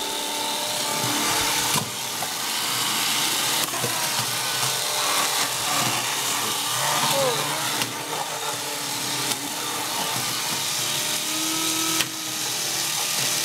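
Two Bandai Break Go Ga battle robots whirring steadily on their small electric motors as they shove and grapple in a plastic arena, with a few sharp knocks as they bump and collide.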